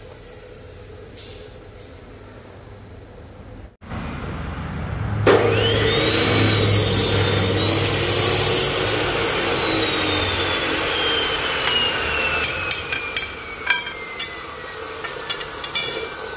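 A motor starts up about five seconds in and runs with a steady hum. Its whine rises quickly and then falls slowly and evenly, with a few clicks near the end.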